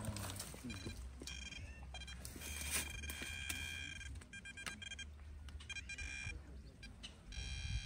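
Metal detector sounding its target tone: a steady high beep that cuts in and out as the coil sweeps over buried metal, stopping briefly around the middle and coming back near the end.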